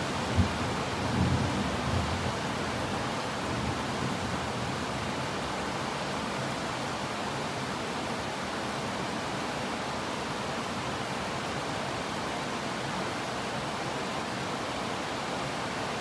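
Heavy rain pouring steadily, with a low thunder rumble fading out over the first couple of seconds.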